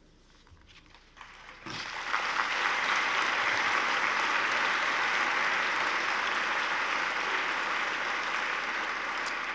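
Audience applauding, starting about two seconds in after a brief hush and easing slightly near the end.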